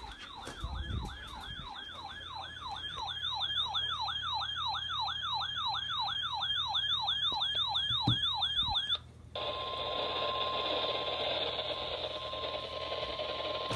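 A weather alert radio sounds its electronic warbling siren, about three sweeps a second, which cuts off about nine seconds in, with a couple of low knocks near the cut. The radio's audio then opens onto hissy NOAA Weather Radio reception carrying the steady warning alarm tone.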